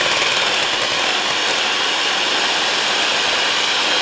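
Electric hand mixer running steadily, its beaters whipping double cream in a glass bowl until it thickens.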